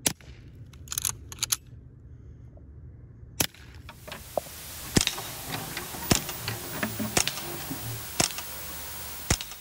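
Henry Golden Boy lever-action .22 rimfire rifle firing through a brass-tubed GSL Tomcat suppressor: a few short, sharp cracks over the first three and a half seconds. Then comes a glitchy static hiss scattered with crackling clicks, which cuts off at the end.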